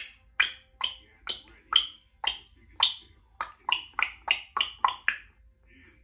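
Congo African grey parrot making a run of short, sharp clicking pops with its mouth, about two a second, then quickening to about three a second before stopping.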